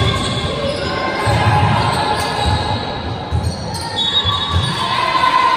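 Basketball game play on a wooden sports-hall court: a basketball bouncing in an irregular string of dull thumps, echoing in the large hall, with higher pitched sounds from about four seconds in.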